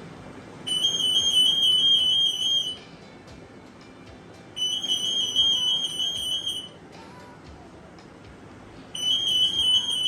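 An 8.2 MHz RF anti-theft (EAS) security gate's alarm sounding three times, each a rapid high-pitched beeping about two seconds long. The alarm signals that the gate has detected a security tag passing between its antennas.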